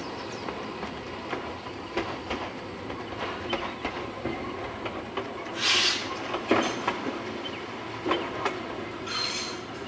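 Small steam train running along the line: a steady rumble with irregular clicks and knocks of the wheels over the rails. Two short bursts of steam hiss come about halfway through and again near the end.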